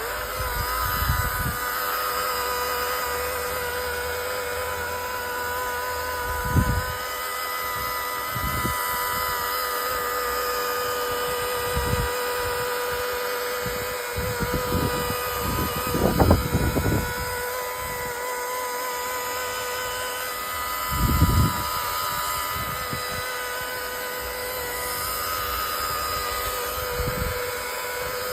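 Electric polishing machine running steadily with a constant motor whine while its pad works polish on a plastic headlight lens. Several short low thumps come and go as it is handled.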